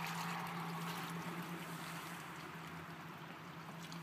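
Vehicle engine running steadily at low revs with a constant low hum, under a soft rushing, watery noise that is strongest about the first second.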